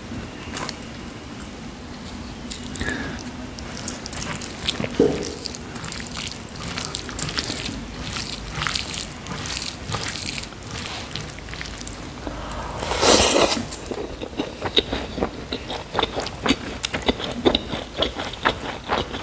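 Fingers mixing cooked white rice into pork curry gravy on a plate: many small wet clicks and smacks, with a louder rush of noise about thirteen seconds in.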